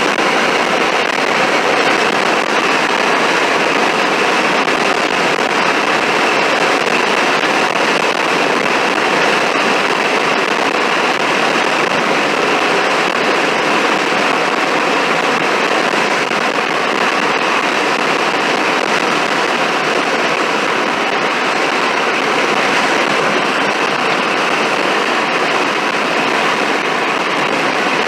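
Steady rushing road and wind noise of a car being driven, unbroken throughout.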